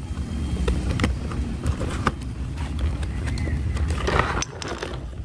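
A cardboard toy box being opened by hand, its flap pulled back and the packaging inside handled, giving scattered clicks and crinkles and a rustle about four seconds in. A steady low rumble runs underneath.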